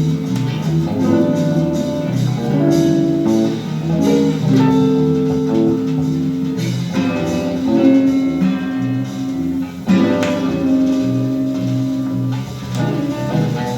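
Guitar-led instrumental passage of a song, with held notes over a bass line and no vocals.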